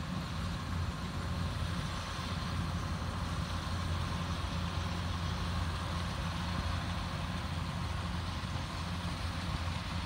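Kubota DC-70 rice combine harvester's diesel engine running steadily as it harvests, a constant low drone.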